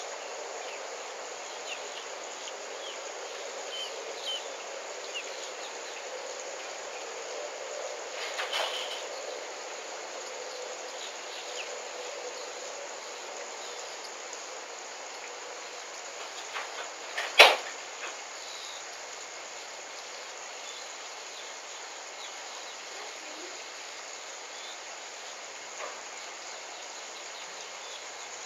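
Steady outdoor background hiss, with one sharp click a little past the middle and a few fainter clicks and ticks earlier.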